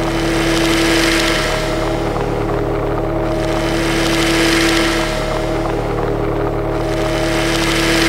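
Noise music: a dense, steady low hum with a sustained drone tone, under a hissing wash that swells and fades roughly every three and a half seconds.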